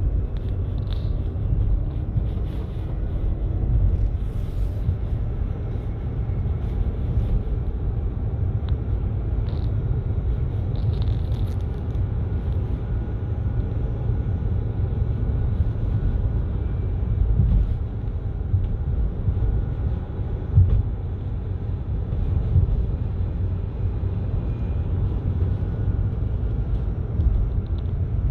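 Renault Zoe electric car on the move: a steady low rumble with a faint, steady higher whine over it. This is the noise the owner considers abnormal.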